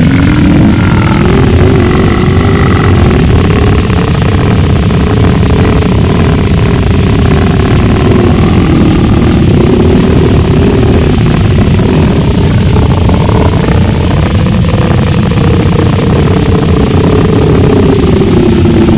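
Gorenoise: a wall of harsh, heavily distorted noise with a dense low rumble and a slowly wavering hum above it.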